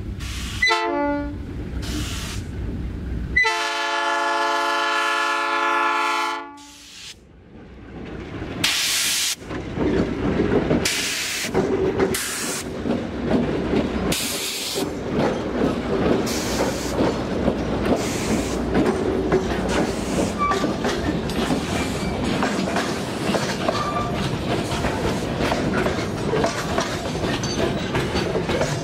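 A diesel locomotive air horn sounds one long blast of about three seconds. A pair of GE C30-7 diesel-electric locomotives then run past hauling loaded wagons, with a steady rolling rumble and wheels clicking over the rail joints as the cars go by.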